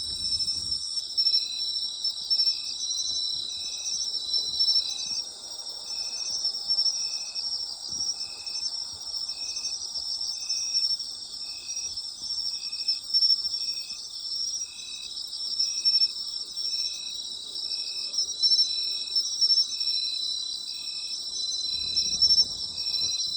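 A chorus of autumn night insects, likely crickets, trilling steadily at a high pitch. Through it one insect chirps a short, lower note about once a second in a regular rhythm, and another trill starts and stops a few times.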